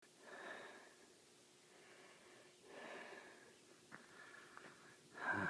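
Faint breathing close to the microphone: three soft breaths a couple of seconds apart, with two small clicks near the middle.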